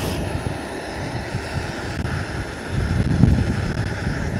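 Wind buffeting the microphone: an uneven low rumble that swells and drops.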